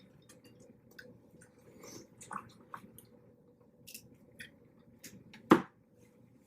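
Close-up eating sounds from a seafood boil: quiet chewing with small wet clicks and crackles, and one sharp click about five and a half seconds in.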